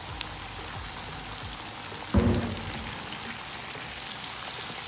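Flour-coated chicken wings deep-frying in hot oil, the oil crackling and sizzling steadily, with a single loud thump about two seconds in.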